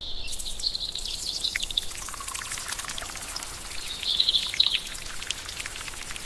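Steady rain falling, with many fine drop ticks, and a small bird twittering twice: near the start and again about four seconds in.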